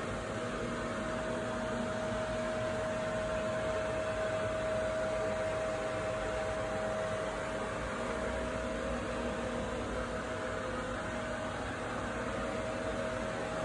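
Ventilation fan running steadily: a whooshing hiss with a steady hum tone through it.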